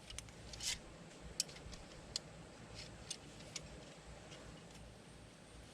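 Faint, scattered metal clicks and taps, about half a dozen at irregular intervals with a short rattle near the start, from a brake caliper piston compression tool being worked on a rear disc-brake caliper as the piston is pushed back.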